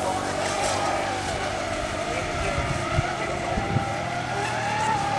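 Radio-controlled racing catamarans running at speed, their motors making a steady whine that wavers up and down in pitch. Two brief thumps about three seconds in.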